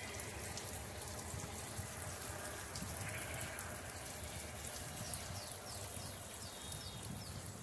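Water running and stirring in a shallow irrigation channel, heard as a steady wash with a low rumble. A short animal call comes about three seconds in, and a quick run of high falling chirps near the end.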